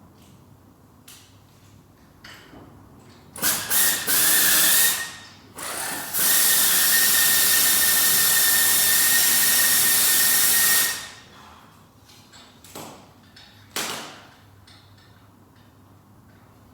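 A power tool runs in a few short bursts, then steadily for about four and a half seconds, a hiss with a thin steady whine in it. Two brief bursts follow near the end.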